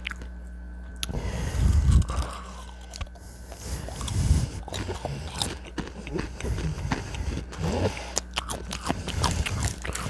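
Close-miked chewing and biting, a run of crunches and mouth clicks, with two louder bursts about two and four seconds in.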